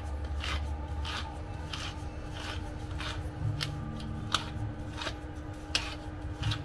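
Hand-twisted spice mill grinding seasoning, in short scratchy crunching strokes about two a second.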